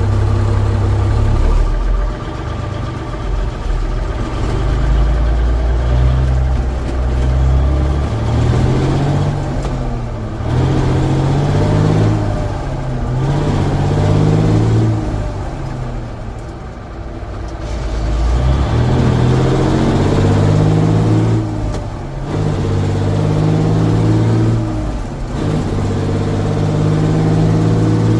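1965 Freightliner's Cummins diesel engine pulling through the gears, heard from inside the cab: its pitch climbs and then drops at each shift of the twin-stick transmission, several times over.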